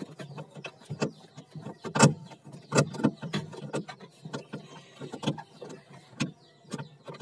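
Hand screwdriver unscrewing a screw from the plastic inner liner of an old refrigerator cabinet, with irregular clicks and knocks of the driver and screw.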